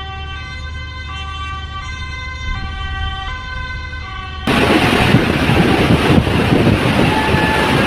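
Two-tone emergency vehicle siren alternating between a high and a low note about every three-quarters of a second. A little over halfway through it cuts off abruptly and a loud, even rushing noise takes over.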